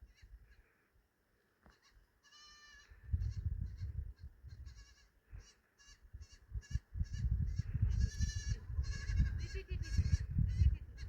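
A flock of goats and sheep bleating, many short quavering calls overlapping, with one long loud bleat about eight seconds in, over a low rumbling noise.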